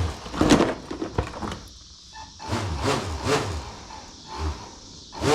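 Clicks, knocks and clatter of loose batteries being handled and fitted back into a battery compartment, with a sharp knock about half a second in. A pitched tone starts right at the very end.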